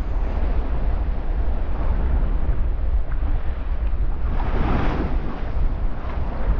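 Wind buffeting the microphone with a heavy low rumble over the wash of open-sea waves, and a louder rush of a breaking wave about four and a half seconds in.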